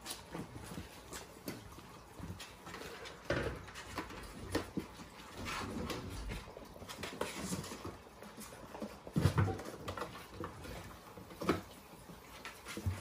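Bengal kittens scrambling in and over a cardboard box on a hardwood floor: an irregular patter of small paws, with scratching and knocks on the cardboard and a louder thump about nine seconds in.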